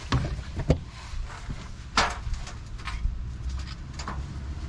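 Handling noises as a rubber transmission cooler hose is moved into place: a couple of sharp clicks near the start, one brief scrape about two seconds in and a light tick later, over a steady low rumble.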